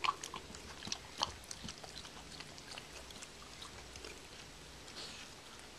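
A dog's wet mouth sounds: licking and chewing, a run of sharp smacking clicks in the first second or so, then fainter, scattered ones. The dog has just vomited.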